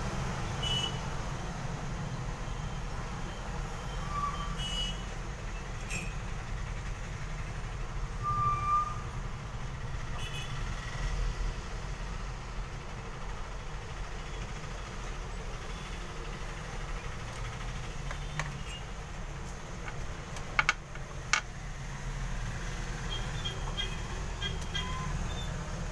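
Steady low background hum and rumble with a few faint short beeps, and two sharp clicks about two-thirds of the way in from small metal tools handled on a workbench.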